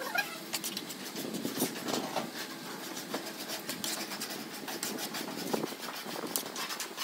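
Small steel trowel scraping and clicking against a mortar hawk and the column's moulding as wet mortar is worked on, a quick irregular run of short scrapes and taps. A steady engine-like hum runs underneath.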